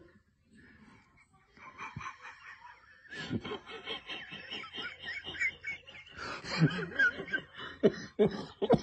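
A person laughing under their breath in quick short snickers, starting softly and growing louder and more frequent toward the end.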